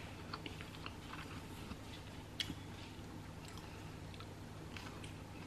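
A person chewing food: faint, scattered wet mouth clicks, with one sharper click about two and a half seconds in.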